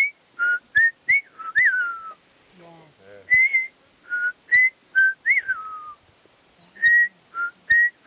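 A man whistling an imitation of the pied butcherbird's song: a string of short, clear notes, some held and some gliding down, in two phrases with a short pause between them.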